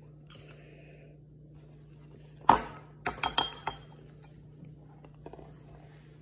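A sharp knock, then a quick run of clinks with short ringing: a metal fork and measuring spoon tapping against a ceramic mixing bowl as sticky peanut butter is scraped off into it.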